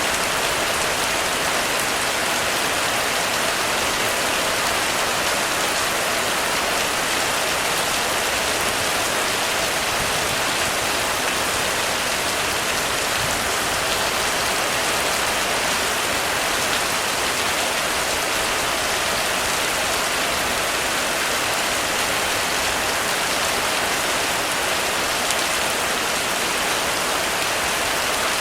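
Heavy rain falling steadily on a roof, a dense, even patter of drops without a break.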